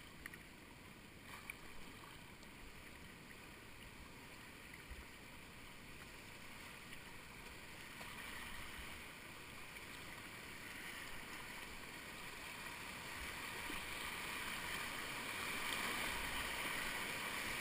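Rushing whitewater of a mountain river, growing steadily louder as the kayak moves into a rapid.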